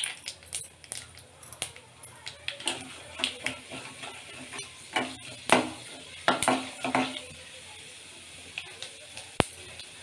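Mustard seeds, chana dal and urad dal frying in hot oil in a metal kadai: a sizzle with many sharp crackles and clicks of popping seeds, and a metal spatula scraping and clinking against the pan as it is stirred. The crackling thins out after about seven seconds to a steadier, quieter sizzle.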